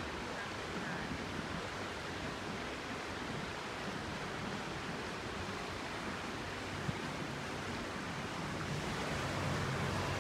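Steady rushing noise from a small boat moving along a canal: water washing past and wind on the microphone. A faint low hum comes in near the end.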